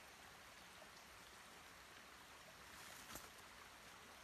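Near silence: a faint steady hiss of outdoor background, with one soft click about three seconds in.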